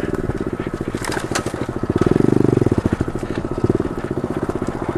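SSR 110cc pit bike's single-cylinder four-stroke engine running with a rapid, even putter at low speed, getting louder for a moment about two seconds in.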